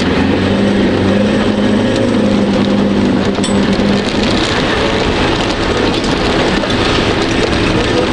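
Off-road 4x4 driving hard along a muddy track, heard from inside the cab. The engine runs steadily over a constant rush of tyre, mud-spray and body-rattle noise, and its note shifts about four seconds in.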